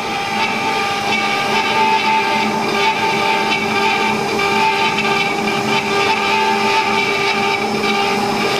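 CNC router spindle running at speed with a steady whine of several held tones, its cone-shaped engraving bit cutting into MDF with a continuous noisy rasp.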